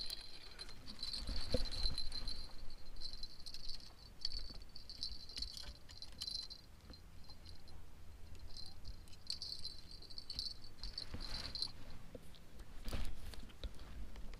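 High-pitched insect buzzing that comes and goes in bursts of a second or more, with a couple of short knocks, the louder one near the end.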